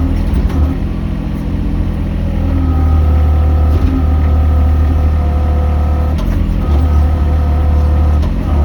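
Mini excavator engine running steadily, its note shifting with load about two and a half seconds in and again around six seconds.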